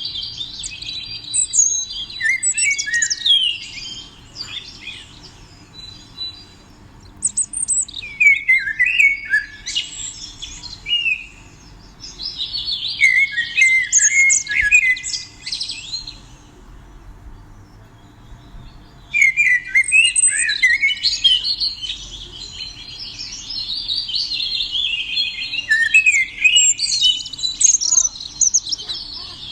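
A small songbird singing in long phrases of rapid chirps and trills, with short pauses between the phrases.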